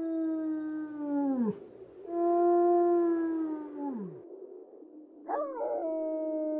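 Long, steady howls, one after another. The first two each hold one pitch and then slide down and fade out. A third begins about five seconds in with a wavering start, then holds steady.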